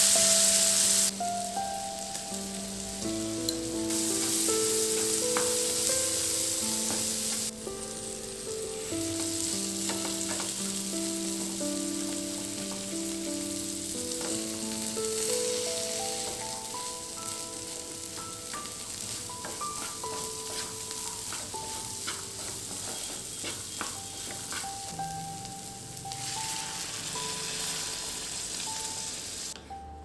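Chickpeas and masala sizzling in hot oil in a nonstick frying pan, loudest at the start, while a wooden spatula stirs and knocks against the pan; the sizzle dies away near the end. Soft melodic background music plays throughout.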